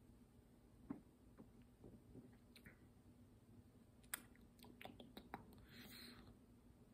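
Near silence with faint wet mouth clicks and lip smacks from someone tasting a sip of a lemon tea drink, the clicks coming closer together about four to five seconds in. A brief soft hiss follows near the end.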